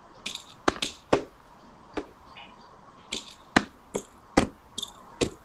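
About a dozen sharp taps, irregularly spaced, some in quick pairs. The loudest come about a second in and again past the middle.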